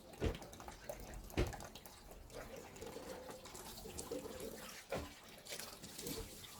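Water splashing in a sink as a fabric part of a vacuum cleaner is washed by hand, with three sharp knocks.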